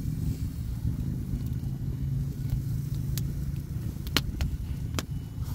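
Wood fire in a fire pit crackling, with several sharp pops in the second half, the loudest about four seconds in, over a steady low rumble.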